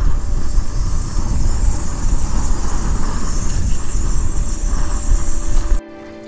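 Wind buffeting the microphone: a loud, uneven low rumble with a hiss over it. It cuts off suddenly near the end, giving way to soft music.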